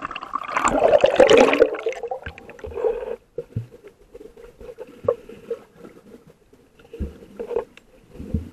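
Sea water splashing and churning as the camera plunges under, loudest in the first two seconds. It settles into muffled underwater gurgling and bubbling, with scattered knocks and a faint steady hum.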